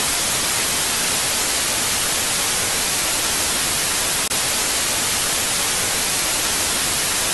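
Loud, steady white-noise static hiss that cuts in and cuts off abruptly, a TV-static sound effect used as an edit transition.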